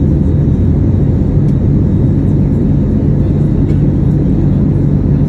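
Steady cabin roar of an Airbus A321neo in the climb, engine and airflow noise heard from inside the passenger cabin, deep and even with a faint low hum.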